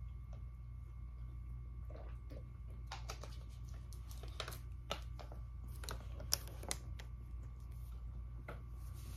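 A string of light clicks and plastic crackles from a plastic water bottle being handled while taking a pill, sparse at first and busiest from about two to seven seconds in, over a steady low hum.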